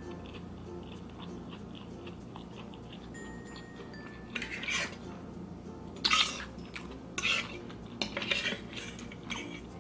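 Cutlery clinking and scraping against a dish while eating, in several short bursts, mostly in the second half.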